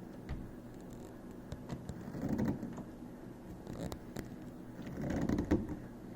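Pointed steel rod probing inside a locked door lock's small emergency-release hole, making light metallic clicks and two short scraping rattles as it searches for the release catch at the center point.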